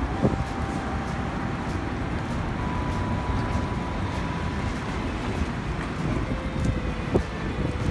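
Wind buffeting the microphone: a steady, fairly loud rushing noise, heaviest in the low end, with a few faint steady tones behind it.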